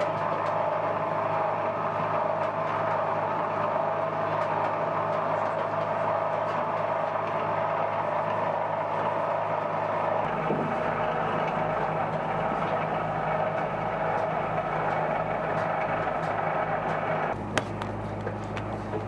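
Machinery running with a steady drone and several steady tones. A deeper hum joins partway through, then the drone drops off near the end, with a sharp click.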